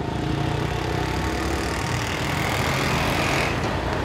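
Motor vehicle engine idling steadily: a low, even hum.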